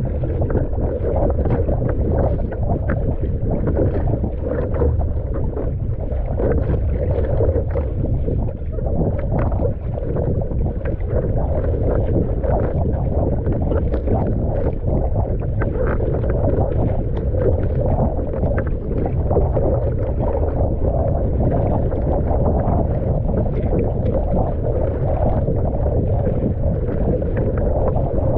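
Choppy water rushing and slapping along a surfski's hull, with the paddle blades splashing at each stroke, heard close up from the deck. Wind buffets the microphone throughout.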